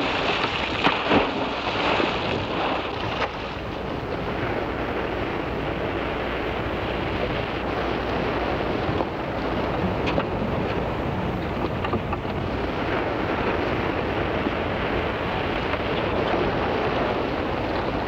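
Water splashing for the first few seconds as a diver enters the sea from a boat, then a steady wash of open sea and boat noise with wind buffeting the microphone.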